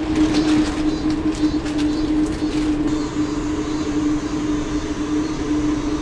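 Portable gas stove burning steadily under a pot of ramen: a steady hum over a rushing noise.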